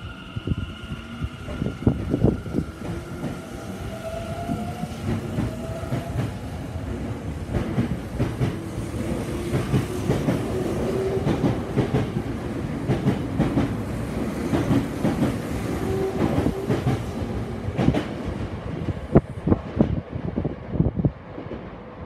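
Tokyo Metro 10000-series electric train pulling away from the platform. Its traction motors whine, rising in pitch in several steps as it gathers speed, and its wheels clatter over the rail joints. The sound falls away near the end as the last car passes.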